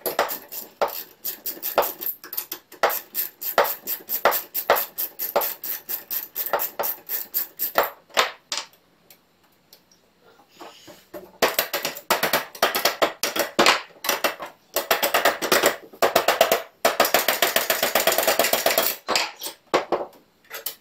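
Rapid metallic clicking and ticking from a hand tool working the screws of a jointer's kickback finger bar, metal on metal. It comes in two long runs of quick clicks with a pause of a few seconds in between, the second run faster and denser.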